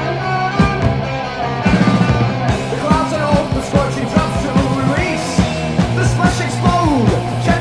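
New Wave of British Heavy Metal song played by a full rock band: distorted electric guitars over a steady drum beat.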